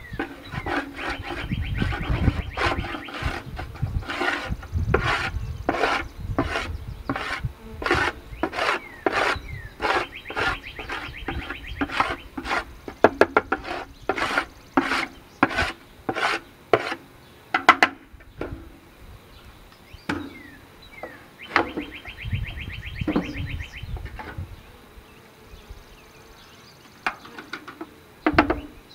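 Repeated scraping strokes on wood, about two a second, easing off after about eighteen seconds into a few scattered scrapes. A bird trills briefly three times.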